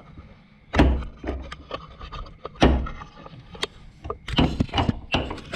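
Irregular knocks and clunks of tools and metal parts during gearbox refitting: two heavier thuds about a second in and near the middle, then a quick run of knocks later.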